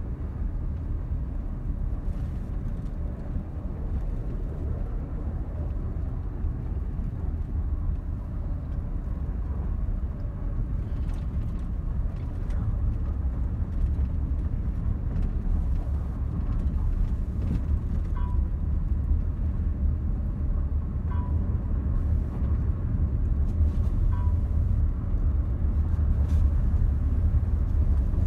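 Steady low rumble of a motor vehicle on the move, a little louder in the second half, with three faint short beeps about three seconds apart.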